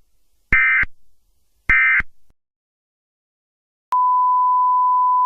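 Two short bursts of Emergency Alert System SAME data tone, the warbling two-pitch digital squawk that marks the end of an alert message, about a second apart. After a pause of about a second and a half, a steady single beep-like tone near 1 kHz starts sharply and holds.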